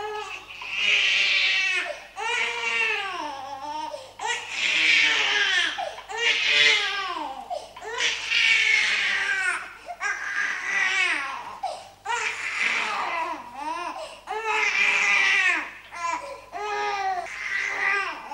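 A baby crying hard, in repeated wails of about a second and a half each, roughly one every two seconds.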